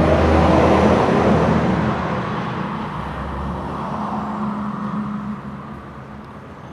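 A road vehicle passing by, its engine and tyre noise loud at first and fading away over the last few seconds.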